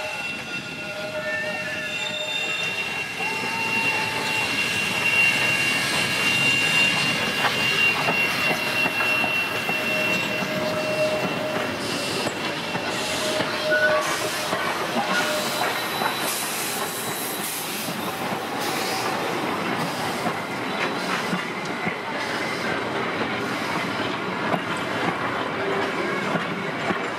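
Narrow-gauge steam train passing close at low speed: wheel flanges squeal in a steady high tone through the first half, then the locomotive and carriages roll by with a run of sharp wheel clicks.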